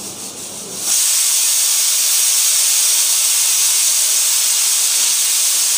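Stovetop pressure cooker on a gas burner venting a steady jet of steam through its weight valve: a loud, even hiss that starts abruptly about a second in. Rice is cooking inside.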